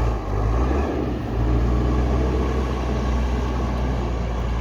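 Backhoe loader's diesel engine running steadily under work. Its low note briefly wavers in the first second, then settles.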